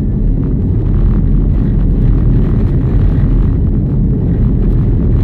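A vehicle driving down a rough country road: a steady low rumble of engine and tyre noise.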